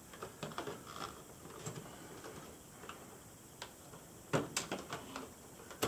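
Small plastic clicks and light handling sounds as the brittle retaining tabs are released and a 128 KB memory module is worked out of its slot in an IBM PC Convertible. Two sharper clicks come about two-thirds of the way through.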